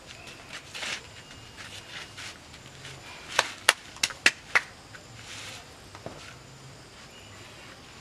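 Five sharp smacks in quick succession, about a third of a second apart, a little over three seconds in, with softer scuffing noises around them.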